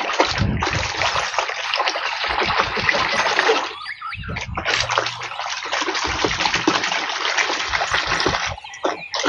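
Running water washing mud off a plastic toy gun: two long spells of splashing, broken briefly about four seconds in.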